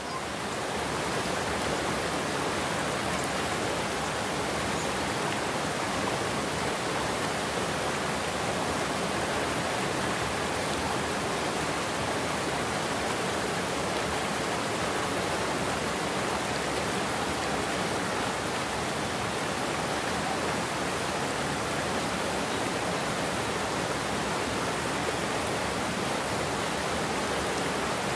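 Water pouring over a concrete weir and churning in the pool below: a steady, even rush.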